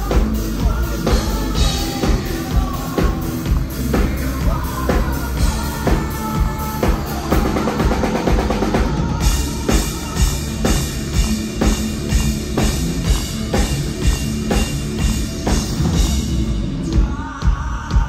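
Power metal band playing live, with drums keeping a steady beat under guitars. The cymbals come in heavily about halfway through.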